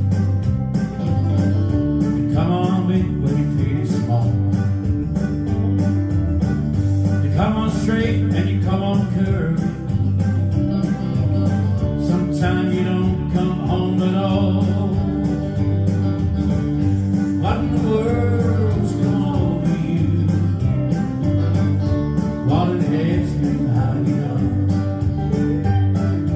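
Live country band playing an instrumental intro: guitars over a steady bass beat, with a melodic lead line coming in phrases about every five seconds.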